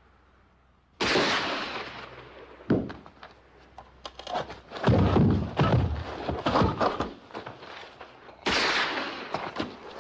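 Rifle gunfire in a western film soundtrack: a sudden shot about a second in with a long echoing tail, a run of heavy thuds and sharp cracks in the middle, and another echoing shot near the end.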